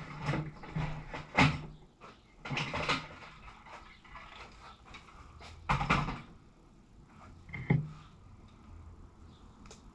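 Hand tools and parts handled on a wooden workbench and in a tool bag: irregular knocks and clatters, the loudest about a second and a half in and about six seconds in.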